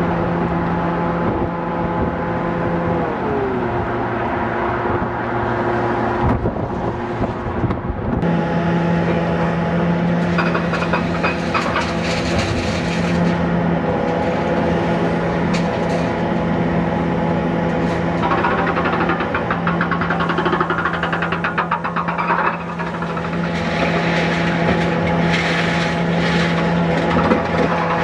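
Diesel engine of a demolition excavator running steadily, with several stretches of rapid rattling as the machine works.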